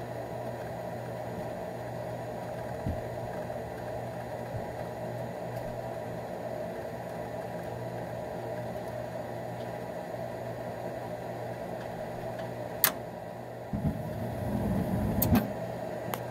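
Gas furnace's draft inducer motor running with a steady hum. Near the end a click, then the burner lights with a low rumble for about a second and a half and goes right out, another click following: the burner failing to stay lit.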